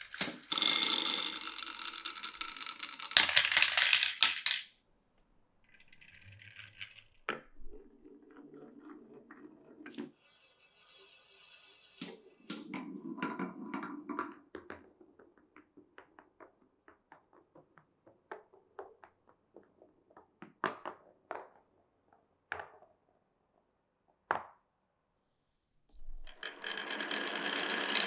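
Glass marbles running through a wooden marble run. There are stretches of steady rolling, loudest in the first few seconds and again near the end, and softer rumbling runs between them. Through the middle come many separate clicks and clacks as marbles drop and knock against the track pieces.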